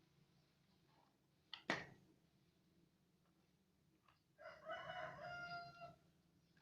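Faint background: a sharp click a little under two seconds in, then one long pitched call of about a second and a half, such as a rooster's crow, near the end.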